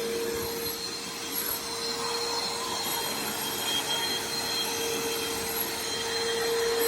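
Vacuum cleaner running steadily on blow, pushing air over a rotary hammer to cool it after heavy use: a steady hum over an even rush of air.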